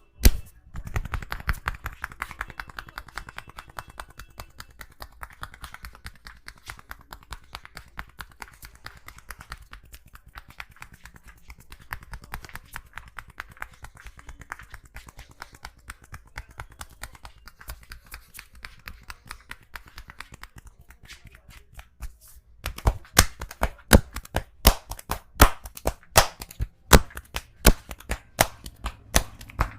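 Hands striking a person's head and neck in a rapid, even patter of light percussive taps during an Indian barber massage. About three-quarters in, the taps change to louder, sharper slaps, about three a second.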